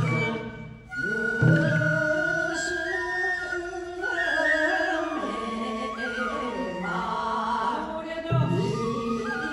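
Live Japanese folk music for a rice-planting dance: a bamboo flute melody with chanted singing, and a drum beat shortly after the start and again near the end.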